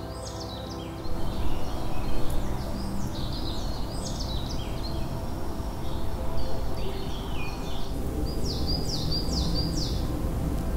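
Forest birds singing, many short chirps and quick falling notes, over a steady low rushing noise that comes in about a second in.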